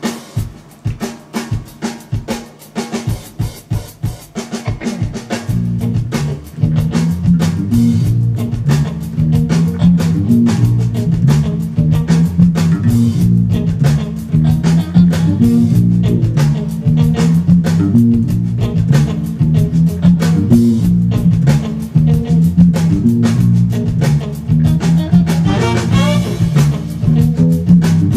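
Funk band recording with an electric bass played fingerstyle along with it: a drum groove alone for about the first five seconds, then a busy, syncopated bass line comes in with the rest of the band and the music gets louder.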